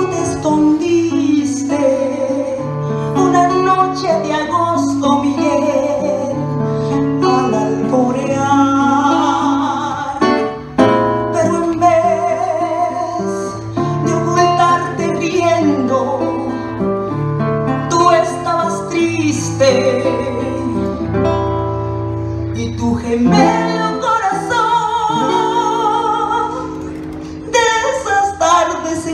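A woman singing, accompanied by a nylon-string classical guitar playing sustained bass notes under her voice.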